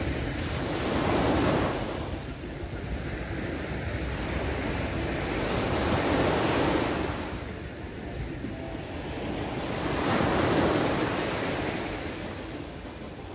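Small waves breaking and washing up a sandy beach, the surf swelling three times about four seconds apart.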